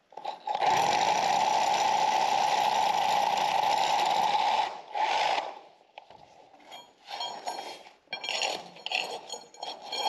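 Parkside Performance 20 V cordless rotary hammer hammer-drilling with a long masonry bit into solid concrete, running steadily for about four seconds, stopping, then giving a short restart burst. The tool struggles in the solid concrete and has to be stopped and restarted. Quieter intermittent scraping and rattling follow as the bit is worked in the hole.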